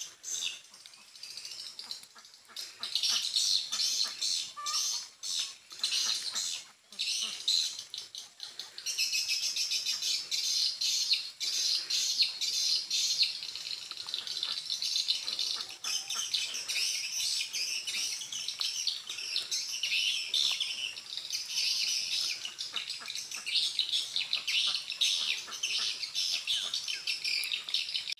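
Swiftlets twittering: high, rapid chirps, sparse at first and becoming dense and continuous about nine seconds in.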